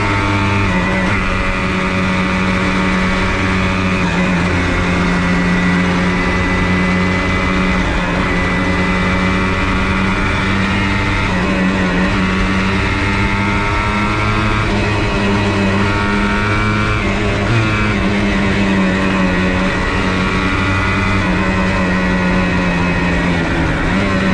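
Yamaha Blaster 200's single-cylinder two-stroke engine running under way on the road, holding a fairly steady note at cruising speed and dipping and picking up again a few times as the throttle changes.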